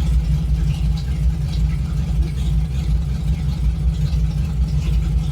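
Engine of a home-built desert race vehicle running steadily at low speed, a deep, even exhaust note with no revving.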